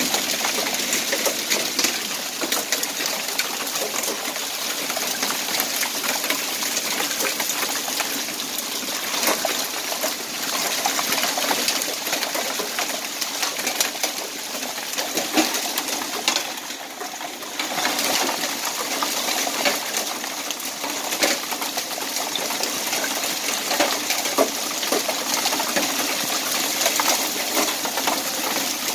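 Hail falling with rain, a dense steady patter of stones striking the pavement with many sharp clicks. It eases briefly a little past halfway.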